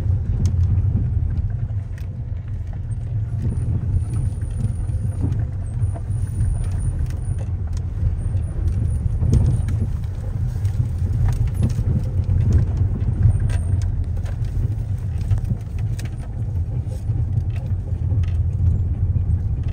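Car driving over a rough dirt track: a steady low rumble of engine and tyres, with frequent knocks and rattles from the bumps.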